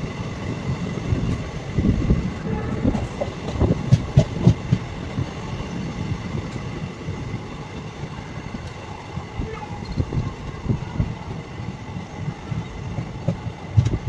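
Indian Railways passenger train running along the track, heard from the coach: a steady rumble of wheels on rail, broken by irregular knocks and clacks.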